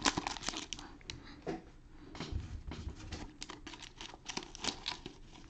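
Foil trading-card pack wrapper crinkling as it is peeled open and handled, heard as soft, scattered crackles and ticks.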